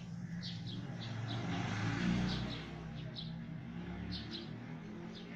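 Small birds chirping, short high notes repeating every second or so, over the low hum of a passing vehicle's engine that swells to its loudest about two seconds in and then fades.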